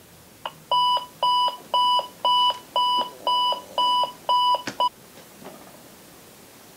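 Digital alarm clock beeping: about eight short, loud electronic beeps, two a second. The beeping cuts off abruptly with a knock just before the five-second mark.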